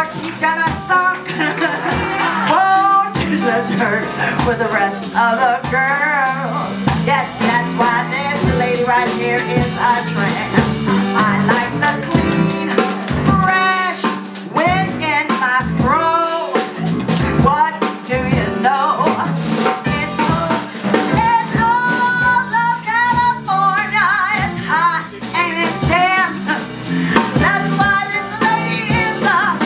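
A woman singing with a band backing of drums and guitar, her held notes wavering with vibrato.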